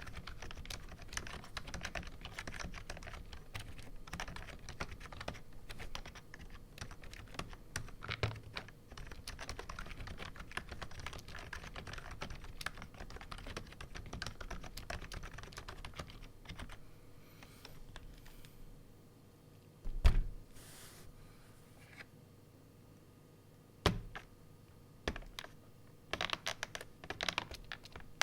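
Typing on an AppleDesign Keyboard with Alps slider-over-dome switches and PBT dye-sub keycaps: fast, continuous keystrokes for most of the first half, then a lull broken by two louder single thumps, then a quick run of keystrokes again near the end.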